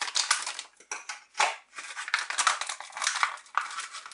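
Scissors cutting into a stiff clear plastic blister pack, with the plastic crackling and snapping in irregular bursts, then foil card packets crinkling as they are handled.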